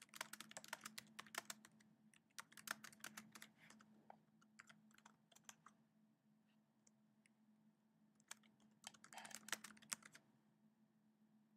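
Faint typing on a computer keyboard: quick runs of key clicks, dense over the first few seconds, then scattered keystrokes, then another quick run about eight seconds in, over a faint steady low hum.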